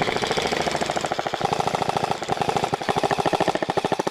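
Airsoft rifle firing on full auto: a rapid, even stream of shots that keeps going without a break.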